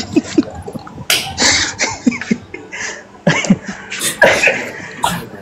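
A man laughing in short breathy bursts, stifled behind his hand.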